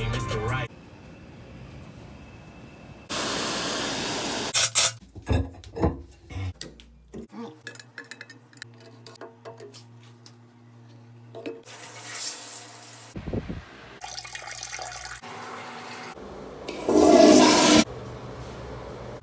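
A run of short cut-together clips of plumbing sounds: rushing water like a toilet flushing, a cluster of clicks and knocks, and a steady low hum for a few seconds. The loudest burst of rushing water comes near the end.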